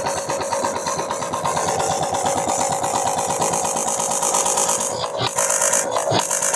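Home-built sound systems played flat out, giving heavily distorted music with a fast, even pulsing beat. About five seconds in, a harsh hiss cuts in with brief dropouts.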